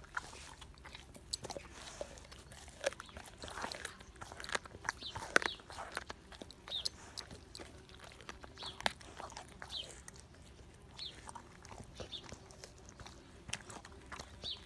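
A dog, an American Staffordshire Terrier, chewing and biting half-thawed raw meat, with irregular wet crunches and clicks of teeth and jaws.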